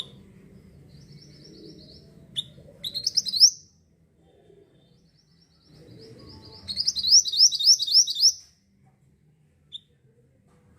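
Mantenan songbird singing lively: two bursts of quick chattering song, each a run of rapid rising notes that grows louder, the second starting about seven seconds in, with short single chip notes in between. A low background rumble rises and falls with the phrases.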